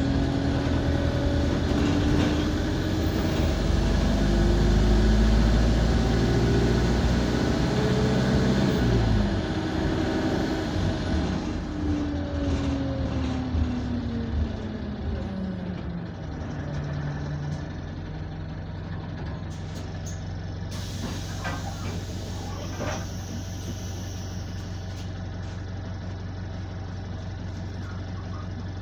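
Diesel engine of an Enviro200 single-deck bus, heard from inside the saloon, pulling away with its pitch climbing for about nine seconds, then winding down as the bus slows and settling to a steady idle for the last ten seconds or so. A few brief clicks and knocks come as it slows. The uploader reports this bus has a burst turbo.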